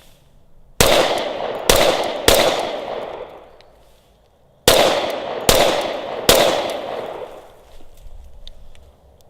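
Glock 21 Gen 4 .45 ACP pistol fired in two strings of three shots about two seconds apart, each string a quick pair followed by a third shot (two to the chest, one to the head). Each shot rings on with a long echo.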